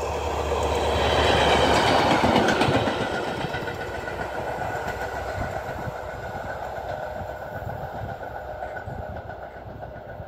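A diesel locomotive running light passes at speed: engine drone and rail and wheel noise swell to a peak about two seconds in, then fade slowly as it draws away.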